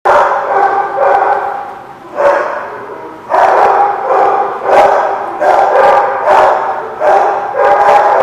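Dogs barking over and over, a fresh loud bout starting about once a second.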